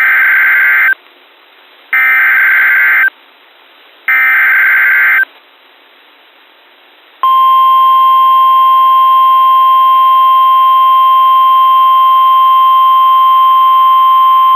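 Emergency Alert System SAME header data: three harsh, screechy digital bursts, each about a second long and two seconds apart. About two seconds after the last burst, the steady single-pitch NOAA Weather Radio warning alarm tone starts. These tones announce a new warning alert.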